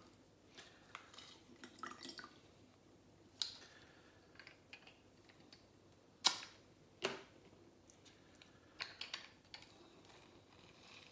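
Handheld lever citrus squeezer pressing lime halves over a glass: faint squishing and dripping of juice, with a few sharp clicks and knocks as the press is opened, reloaded and clamped shut, the loudest about six seconds in.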